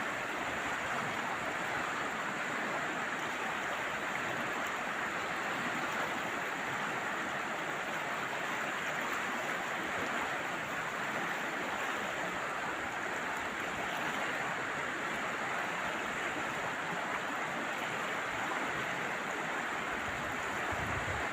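Steady rush of flowing river water: the current of the Loire running past the bank.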